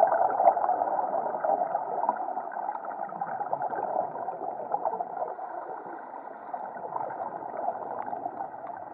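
Muffled underwater noise picked up by a submerged camera: a steady rushing hiss with scattered faint clicks, easing off slightly over the first several seconds.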